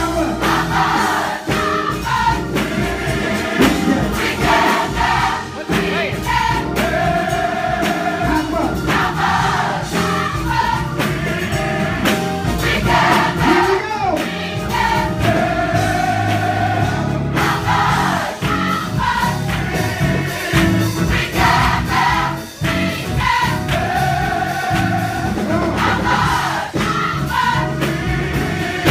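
Gospel choir singing full-voiced, with live band accompaniment keeping a steady beat and hands clapping along.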